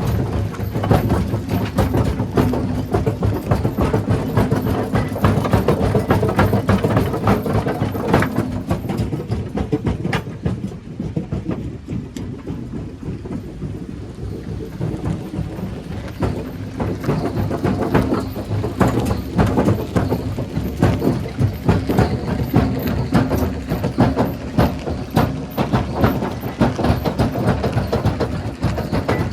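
Rock crusher running: a dense clatter of rocks knocking and cracking over a steady low machine drone, easing off for a few seconds in the middle.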